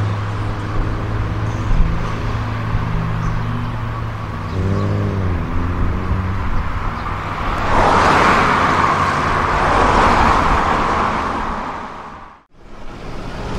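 Road traffic heard from inside a vehicle: a steady low engine hum that dips in pitch briefly about five seconds in, then a louder rush of passing traffic from about eight to eleven seconds in. The sound fades out and cuts back in near the end.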